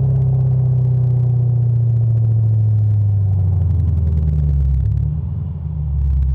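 A car engine running with a deep, steady rumble, its pitch easing slowly down. About five seconds in it drops briefly, then picks back up.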